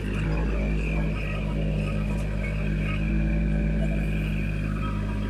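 Kubota tracked machine's diesel engine running steadily and loudly under work, its steady low drone swelling up right at the start.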